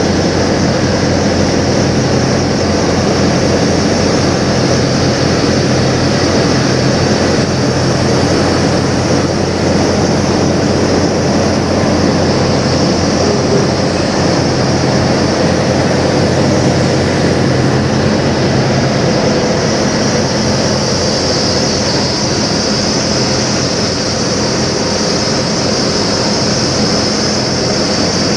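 Diesel semi-truck engine idling steadily, with a steady high hiss over it.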